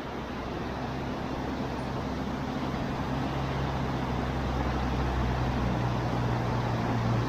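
A vehicle's motor humming steadily over a noisy rush, growing gradually louder.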